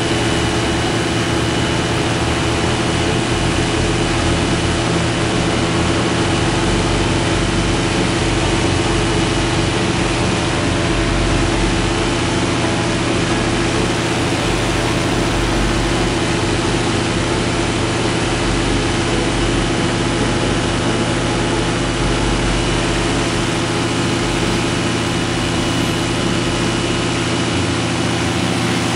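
Paramotor's engine and caged propeller running steadily in flight, an even, loud drone with no change in throttle.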